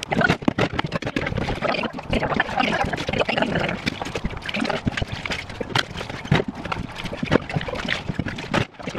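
Dishes being washed by hand in a tub of soapy water: water splashing and sloshing, with frequent clinks and knocks of dishes, cups and a water bottle against the tub and sink.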